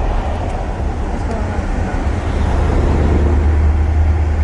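Traffic and road noise heard from inside a moving car with the windows open: a steady low rumble that grows a little louder in the second half.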